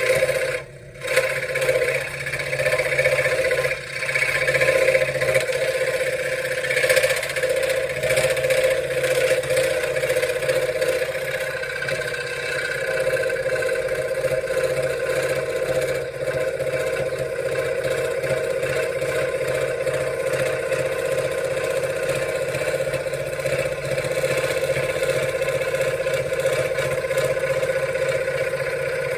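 Benchtop scroll saw running steadily with its fast reciprocating blade stroke, cutting wood. There is a brief dip about a second in.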